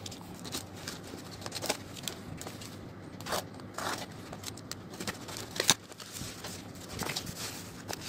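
Box cutter slitting open a small cardboard parcel: several short, sharp scrapes and clicks of the blade on the cardboard, with the rustle of the box being handled.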